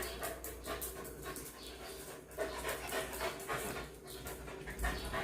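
A pet dog panting, quick short breaths repeating several times a second.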